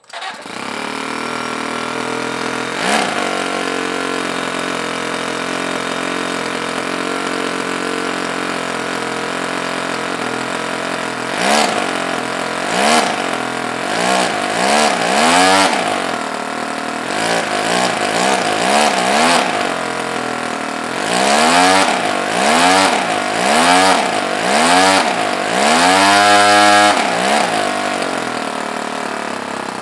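Toyan FS-L200 inline two-cylinder four-stroke glow model engine running steadily at idle. From about a dozen seconds in it is revved by hand at the throttle in a series of quick blips, roughly one a second, each a rising and falling whine. Near the end it is held high for a couple of seconds, then drops back to idle.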